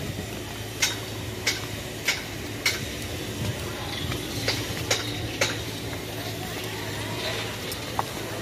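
A run of short, sharp clinks, about one or two a second with a gap in the middle, over a steady low hum and faint voices.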